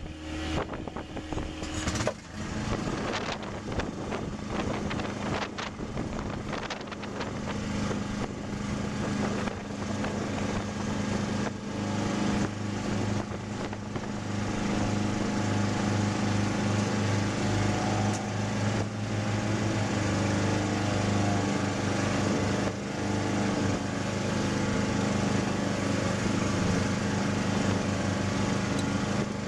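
A boat's engine running steadily underway, its steady hum growing stronger about halfway through, with wind buffeting the microphone during the first few seconds.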